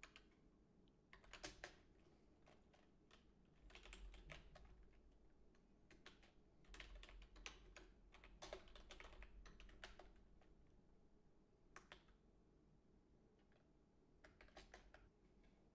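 Faint computer keyboard typing in short bursts of keystrokes with pauses between them.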